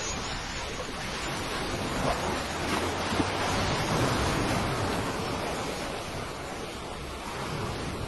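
Steady rushing noise, like surf or wind, that swells a couple of seconds in and eases off again.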